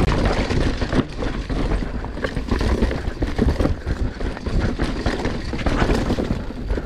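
Mountain bike ridden over a rough trail: a constant low rumble of tyres on dirt, with many irregular knocks and rattles from the bike over the bumps.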